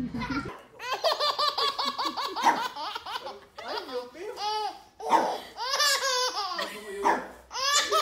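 A toddler laughing hard: a long run of quick, high-pitched 'ha-ha' pulses, then several more laughing fits with short breaks between.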